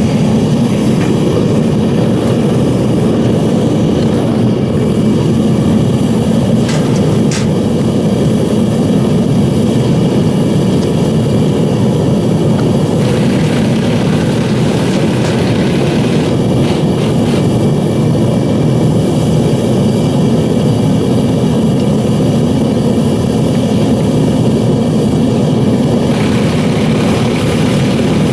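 Devil Forge melting furnace's burner and blower running steadily, a constant rushing noise from the fired furnace. Two brief clicks about seven seconds in.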